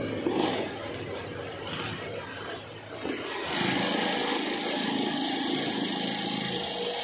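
Woven bag fabric rustling as it is handled and positioned, then about three and a half seconds in the HighTex 53800 long-arm industrial sewing machine starts and runs steadily, stitching a baffle panel into an FIBC bulk bag.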